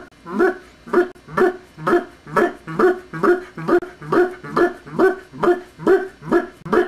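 A performer's voice barking like a dog for a puppet: an even run of short barks, each rising in pitch, about two a second.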